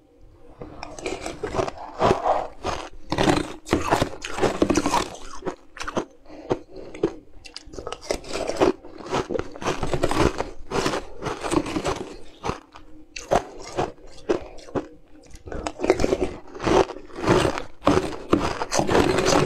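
Close-up crunching and chewing of shaved frozen ice, bite after bite in irregular crackly bursts, with a metal spoon scraping shavings off the frozen block in a glass dish.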